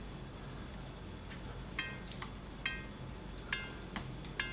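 About six faint, irregular small metallic ticks, each with a brief ringing ping. They come from the speaker relay of a Marantz 2252B receiver as its contact springs are worked with a strip of paper pulled between the contacts to clean them.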